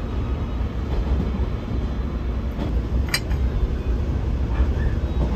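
Steady low rumble of the Rokumon restaurant train running, heard from inside the carriage, with one sharp click about three seconds in.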